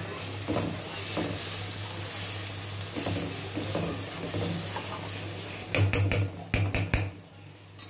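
Sliced onions and spices frying in oil in a stainless steel kadai, sizzling while a steel spoon stirs and scrapes them round the pan. Near the end the spoon knocks sharply against the pan several times.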